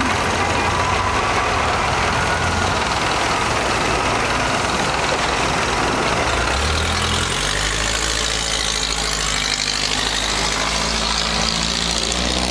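River boat's engine running steadily, its note shifting about halfway through and then holding steady.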